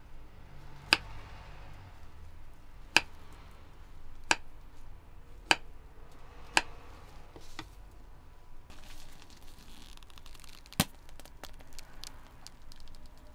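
Kitchen knife slicing a banana on a wooden cutting board: sharp knocks of the blade hitting the board, one every second or so. Near the end come faint, dense crinkly ticks.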